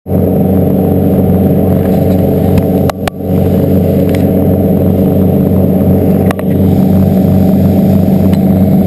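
Charter boat's engines running under way, a loud steady low hum with brief dips about three seconds in and past six seconds.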